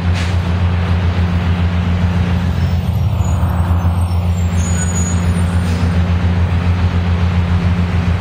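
Diesel highway coach bus running steadily as it pulls through a turn, a low engine drone, with a short hiss of air just after the start and another about two-thirds through.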